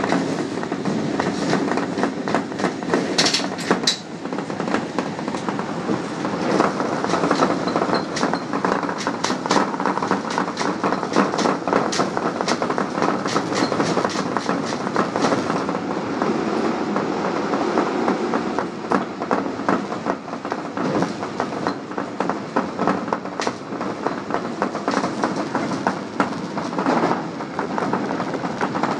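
Osaka subway train running through a tunnel, heard from the cab: a steady rumble of wheels on rails with a dense, irregular clatter of clicks from the track.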